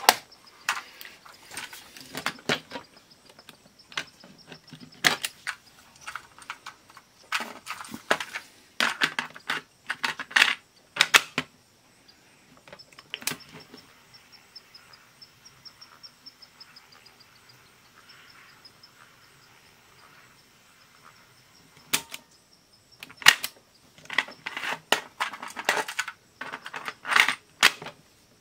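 Hard plastic clicking and clattering as an opened mini cassette player and a cassette are handled, in clusters of sharp clicks with a quieter stretch in the middle.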